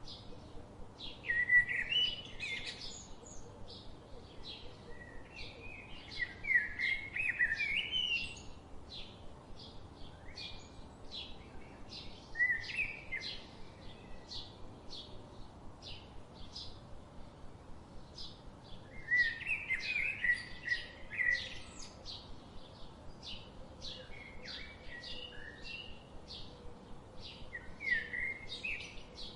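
Birds singing: short warbling song phrases every few seconds over a steady, rapid series of high chips repeated about twice a second, with faint background noise.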